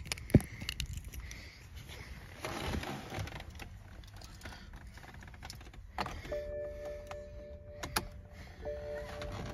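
A sharp thump about half a second in and rustling with small clicks, then from about six seconds a steady electronic tone of several pitches, held for a couple of seconds, breaking off briefly near the end and starting again. The engine is not running.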